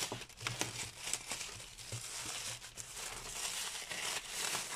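Grey plastic courier mailer bag crinkling and crackling as it is handled and torn open.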